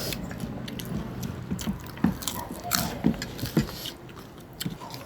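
People chewing and eating biryani close to the microphone, with irregular short crunching and clicking eating sounds.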